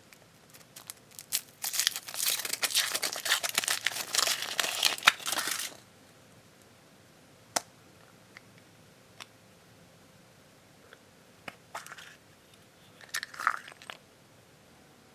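Foil wrapper of a chocolate surprise egg crinkling and tearing as it is peeled off, for about five seconds. A few separate light clicks follow, then a brief crinkle near the end.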